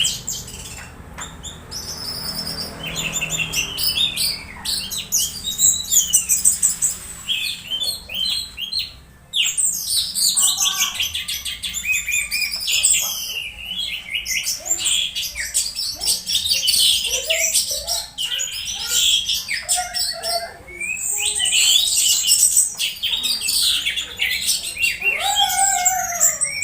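Orange-headed thrush singing a fast, varied stream of chirps, whistles and sliding notes, with a short pause about nine seconds in.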